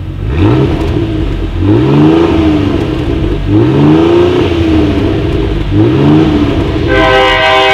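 Exhaust of a 2019 Ford Explorer Platinum's twin-turbo 3.5 L EcoBoost V6, revved four times, each rev rising and falling back toward idle. A steady horn-like tone comes in near the end.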